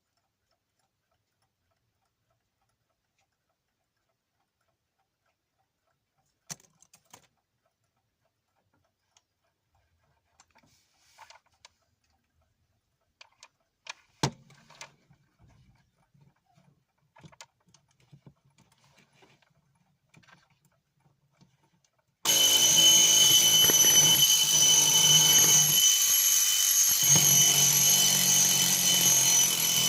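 Soviet Yantar mechanical alarm clock with a bell: a few scattered clicks and knocks, then about two-thirds of the way in its bell alarm goes off, a loud, continuous metallic ringing that keeps going.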